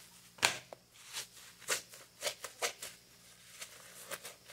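Kitchen sponge wet with homemade dish detergent being squeezed and worked into a lather, a series of short crackly squishes, with one louder knock about half a second in.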